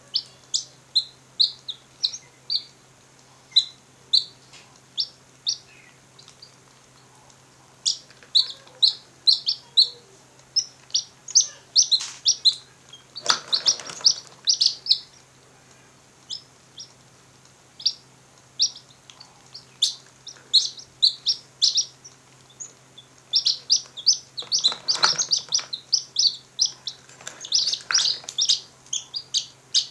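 Newly hatched domestic chicks peeping: many short, high chirps, singly and in quick runs. There are two brief scuffling noises from handling, and a faint low hum throughout.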